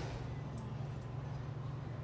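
Steady low hum with no change in pitch or level, with a couple of faint light ticks about half a second and a second in.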